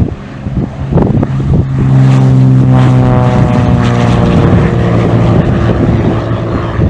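Cirrus SR22T's turbocharged six-cylinder engine and propeller at full takeoff power as the plane rolls and lifts off past the listener. The steady engine tone swells about two seconds in and its pitch falls slightly as it goes by. Gusts of wind hit the microphone early on.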